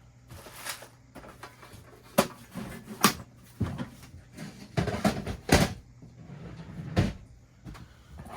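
A handful of sharp knocks and clicks, spaced a second or two apart, with rustling in between: small tools and objects being picked up and set down on a workbench.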